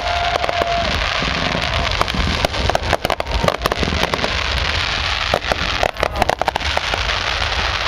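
Fireworks display: crackling aerial bursts over a steady hiss, with dense runs of sharp pops about a third of the way in and again a little past the middle.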